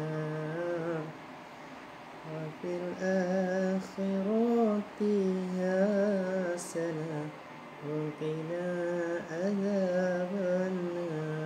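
A man humming a slow, drawn-out lullaby tune off-key, in long wavering phrases with short breaks between them.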